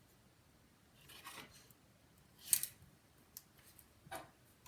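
Small metal repair tools clicking and scraping against the phone's internal parts, in three short bursts, the sharpest about two and a half seconds in.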